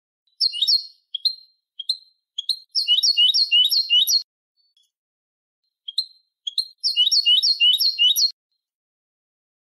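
European goldfinch singing in the Malagueño song style: high, separate chirps, then two phrases of quickly repeated sweeping notes at about four a second, the first around three seconds in and the second near the end.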